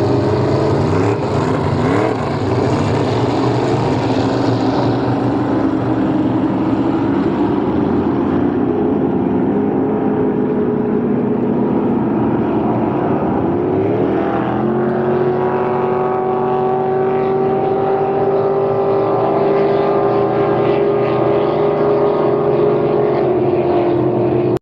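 Racing boat engines running loud and steady. About halfway through, the engine pitch climbs and then holds at a new steady note.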